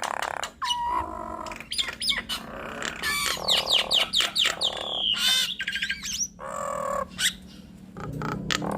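Two jalak nias starlings calling back and forth: harsh squawks and sharp clicks mixed with whistled notes that slide up and down, with a short lull near the end.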